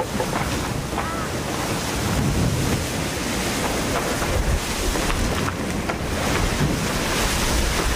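Wind buffeting the microphone over the steady rush of water and spray as a racing maxi trimaran sails fast through a rough sea.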